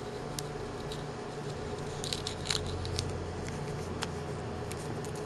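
Faint clicks and scrapes as the metal tube and small parts of a disassembled oscilloscope probe head are handled and pulled apart by hand, busiest about two to three seconds in, over a steady low hum.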